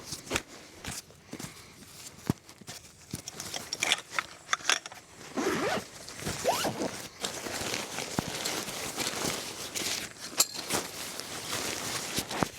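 Handling noise: scattered clicks and knocks, then denser rustling and rasping from about five seconds in.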